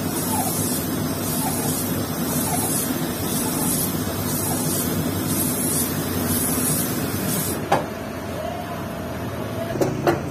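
Lathe spinning an abrasive-cloth-wrapped mandrel while a motorcycle cylinder is worked back and forth over it to grind the bore oversize. It gives a steady hum with a grinding hiss that swells about once a second. About three-quarters of the way through the grinding hiss stops with a click and the lathe keeps humming, and two sharp knocks come near the end as the cylinder is handled.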